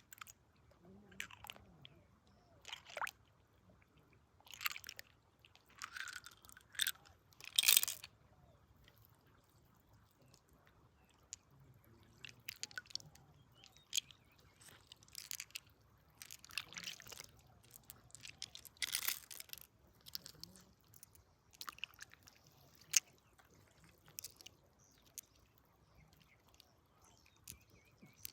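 Irregular crunching and scraping of wet gravel and stones being worked by hand, with a little water sloshing; the strokes come singly or in short clusters with quiet gaps between.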